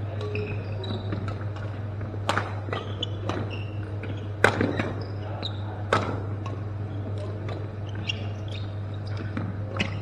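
Badminton rackets hitting a shuttlecock in a rally: three loud, sharp smacks about a second and a half to two seconds apart, among lighter hits. Brief high shoe squeaks on the court floor and a steady low hum run underneath.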